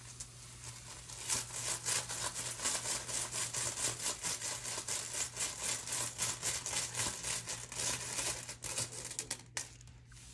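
Rune tiles being stirred and rattled inside a cloth bag before one is drawn: a quick run of small clicks and rustles, several a second, that stops about a second before the end.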